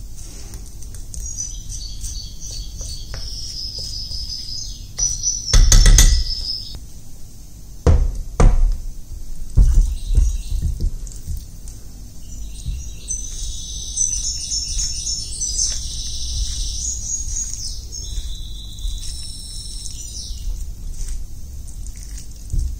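Background music with high chirping tones, and a few sharp thumps and knocks about six to eleven seconds in.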